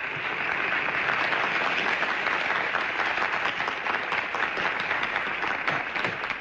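A group of people applauding: dense, steady hand-clapping that starts all at once and keeps going.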